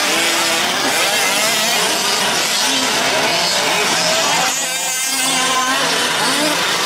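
Several 1/5-scale gas RC trucks' small two-stroke engines running at high revs, their pitch repeatedly rising and falling as they accelerate and back off.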